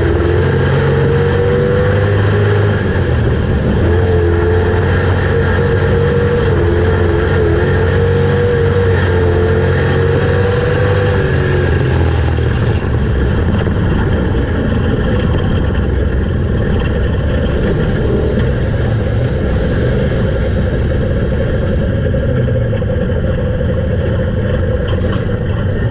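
Dirt-track street stock race car's V8 engine at racing speed, heard from inside the cockpit, its pitch rising and falling through the turns. The clear engine note fades after about twelve seconds into a steadier, noisier rush of engine and wind.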